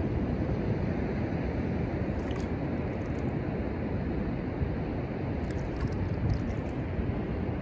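Steady beach ambience of wind on the microphone and distant ocean surf, an even low rushing with no breaks.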